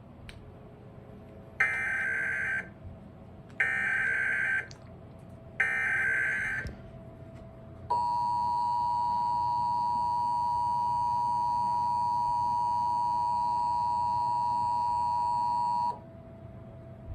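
Emergency Alert System alert opening a national test: three short bursts of digital header data tones, each about a second long and two seconds apart, followed by the steady two-tone attention signal held for about eight seconds, which cuts off suddenly.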